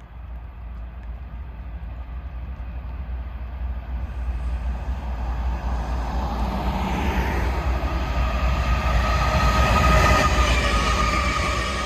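Norfolk Southern freight train approaching and passing, a low diesel locomotive rumble growing steadily louder to a peak about ten seconds in. High ringing metallic tones build up from about halfway through and fall slightly in pitch near the end.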